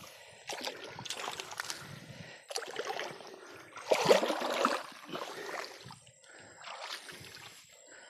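Shallow muddy pond water sloshing and splashing in irregular bursts as hands work and pull weeds in the shallows at the bank; the loudest splash comes about four seconds in.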